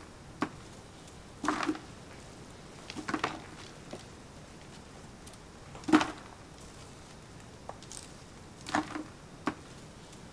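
Handfuls of lumpy raw clay being scooped by hand from wooden tubs and dropped into a plastic bucket: a scattering of short soft knocks and crumbly scrapes, the loudest about six seconds in.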